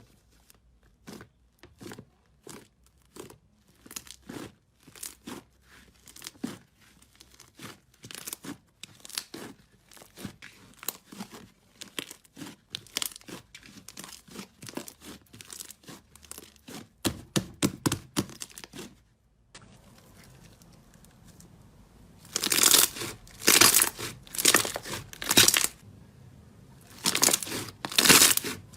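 Slime being pressed and squeezed by hand, giving quick crackling clicks and pops. Shortly after the middle it switches to louder clusters of crackling about a second apart.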